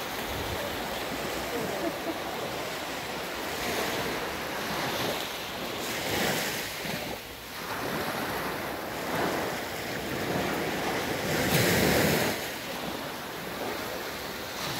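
Ocean surf washing onto a sandy beach, swelling every few seconds and loudest near the end, with wind buffeting the microphone.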